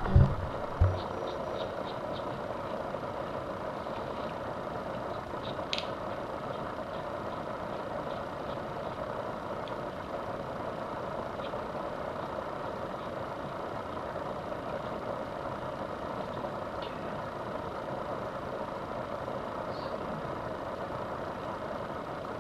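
A steady, even background drone with no rhythm, plus a few faint, scattered ticks as a small screwdriver works two tiny screws out of a fishing reel's frame.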